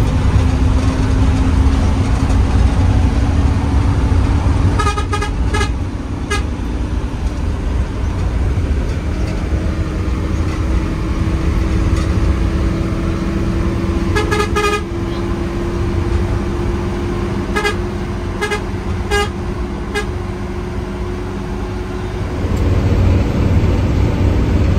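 Hino AK8 bus engine and road rumble heard from inside the cabin while the bus drives, with a steady hum that slowly rises in pitch and drops back near the end. Short vehicle-horn toots sound in a cluster about five seconds in and again several times between about 14 and 20 seconds in.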